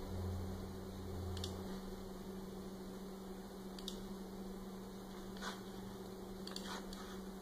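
Faint steady electrical hum, with a few soft computer mouse clicks spaced a second or two apart as holes are placed in a CAD drawing.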